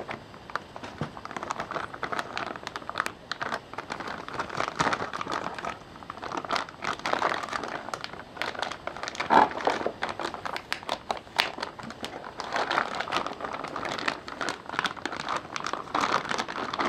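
Plastic anti-static bag around a graphics card crinkling and crackling as hands turn it over and unwrap it, in irregular rustles and clicks.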